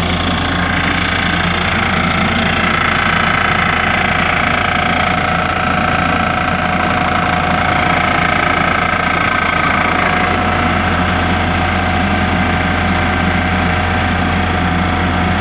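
Hydraulic stressing power pack running steadily: its electric motor and pump give a constant low hum with a steady whine above it.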